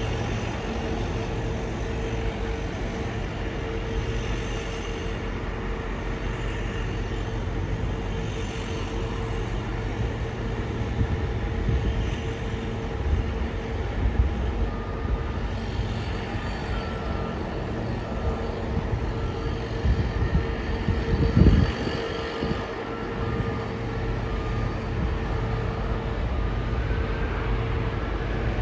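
Distant Boeing 737-700's CFM56 jet engines at takeoff power during the takeoff roll, a steady rumble heard under a constant hum. A brief low thump of noise comes about two-thirds of the way through.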